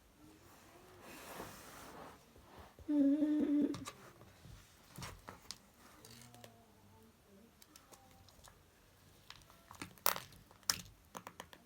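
A person hums one short, steady note about three seconds in, among scattered light crinkles and clicks from hands handling slime and its packaging; a sharper cluster of clicks comes near the end.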